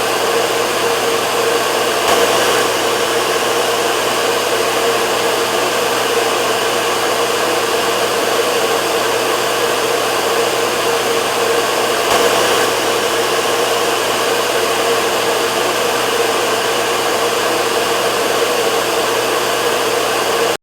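Hair dryer running steadily: an even rush of blown air over a steady motor hum.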